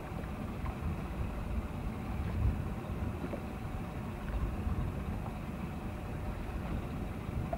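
Steady low rumble of a motorboat's engine running under way on open water, mixed with wind on the microphone.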